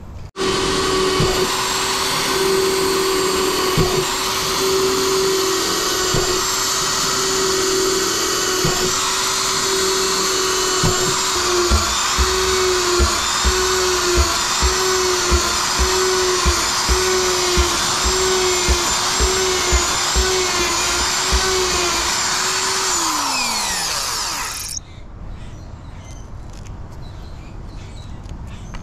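Corded electric drill running almost continuously, boring hole after hole through the wall of a plastic drum. Its steady whine dips in a regular rhythm about once a second, with low knocks, from about halfway, then winds down and stops near the end.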